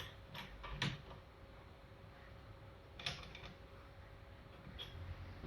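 A few faint metallic clicks and knocks from a hand tool working against a rear shock absorber as it is forced to loosen: two about half a second and a second in, a small cluster around three seconds in and one near the end.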